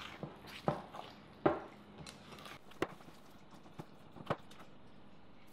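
A spoon working sticky no-knead bread dough in a bowl: about seven irregular knocks and scrapes of the spoon against the bowl, with soft squelches of the dough.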